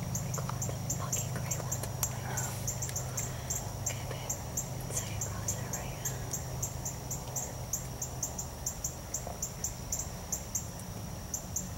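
Insects chirping steadily in a high, even rhythm of about four to five chirps a second, over a low steady hum.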